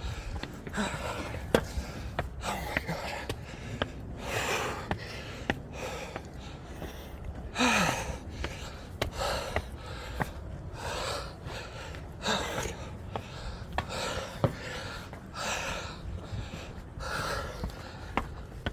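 A man breathing hard, panting loud deep breaths about every one to two seconds, out of breath from climbing a long flight of stairs with a heavy backpack.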